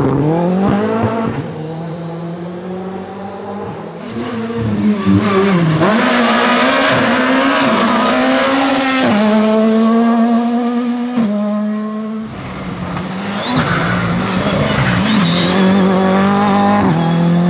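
Rally car engines at high revs as several cars pass one after another, among them a Ford Fiesta and a Škoda Fabia. The engine pitch climbs, holds and drops sharply with gear changes, with tyre noise. The sound changes abruptly twice as one car gives way to the next.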